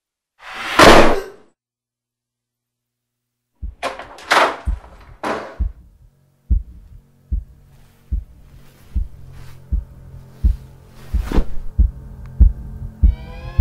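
Horror-film sound design: a loud rushing whoosh, a short silence, then three sharp swishes and a low heartbeat thump that begins about four seconds in and quickens over a low hum. Near the end a wavering tone that rises and falls comes in.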